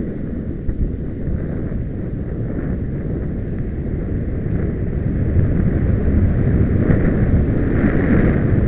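Wind rumbling over the microphone of a camera carried by a moving skier, with skis sliding on packed snow, growing a little louder near the end.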